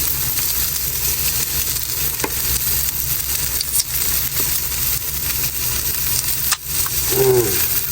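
Salmon frying in a pan, sizzling steadily, with a few sharp clicks along the way.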